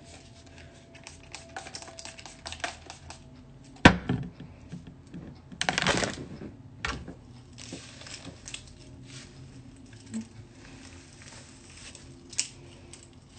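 Crackling and clicking of hair being brushed and handled close to the microphone, with a sharp knock about four seconds in and a brief rustling burst around six seconds.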